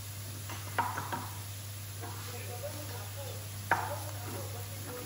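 A few sharp kitchen clicks or knocks, two about a second in and one near four seconds, over a steady low hum.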